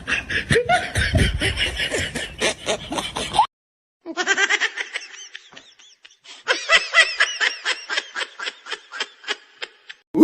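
People laughing in quick repeated ha-ha pulses, with a short break about three and a half seconds in before another burst of laughter.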